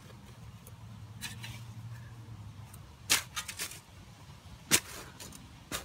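A digging tool strikes dirt, clay and stones in a handful of sharp hits: a quick run of several about three seconds in, and the loudest just before five seconds.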